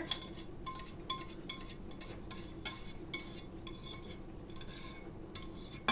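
Wire whisk repeatedly scraping and clinking against a metal mixing bowl as thick cream of chicken sauce is scraped out, with a few short metallic rings.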